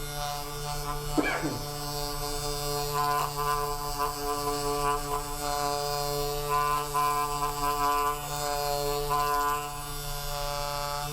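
Steady buzzing drone of a small electric motor holding one pitch, with a brief downward-sliding sound about a second in.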